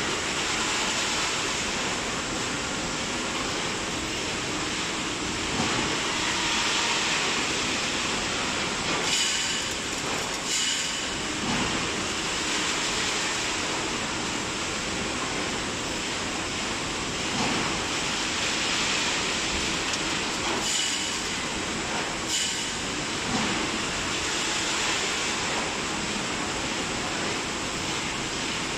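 EVG automatic wire mesh welding line, built in 2000, running: a steady machine hiss and hum, broken by sharp metallic clanks in two pairs, each pair about a second and a half apart.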